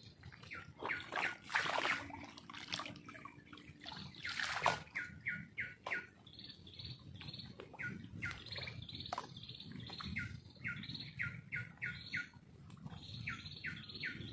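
A songbird calling in runs of quick chirps, each sliding downward, several a second, repeated in short series. A few brief noisy swishes come in the first few seconds.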